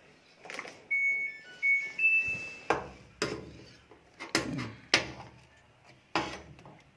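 Washing machine control-panel beeps: a few short electronic tones, the last one higher and longer. Then five sharp knocks over the next few seconds.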